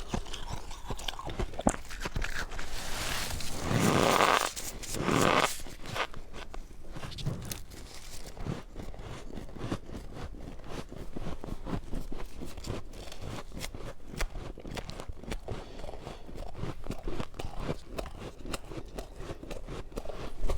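Freezer frost being bitten and chewed close to the microphone, crunching and crackling. Two louder bites come about four and five seconds in, followed by steady crunchy chewing.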